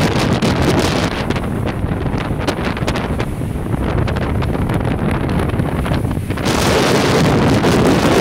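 Strong wind buffeting the microphone aboard a Dragonfly trimaran under sail, over the rush of water past the hulls through the chop. The wind noise grows louder about six and a half seconds in.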